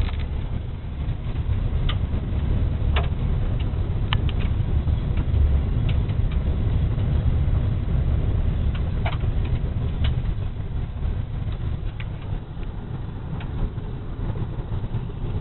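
Car driving on a gravel road, heard from inside the cabin: a steady low rumble of tyres and engine, with scattered sharp ticks throughout.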